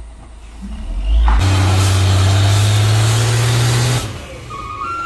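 Heavily loaded cargo truck's diesel engine revving hard under load on a steep climb, with a loud hiss over a steady low drone. It builds about a second in, holds loud for roughly two and a half seconds, then drops off suddenly.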